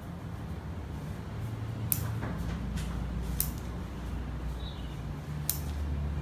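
Bonsai scissors snipping three times, each a sharp click, about a second and a half to two seconds apart, over a low steady hum.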